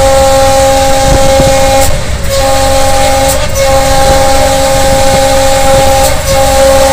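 Air horn of a German-built Henschel diesel locomotive sounding in long held blasts, cut by short gaps about two seconds in and again about six seconds in, over the steady low rumble of the moving locomotive.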